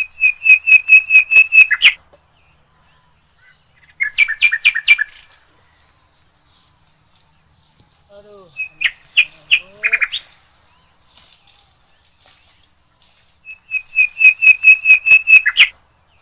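A bird calling in bursts of rapid repeated high notes, each burst one to two seconds long, four times over.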